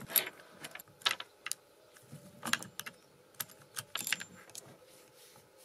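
Saw chain of a small Parkside petrol chainsaw being fitted by hand around the drive sprocket and guide bar: scattered light metallic clicks and rattles of the chain links, a few at a time and irregularly spaced.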